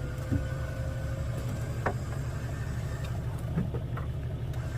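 Vehicle engine idling with a low, steady rumble, with a few light knocks.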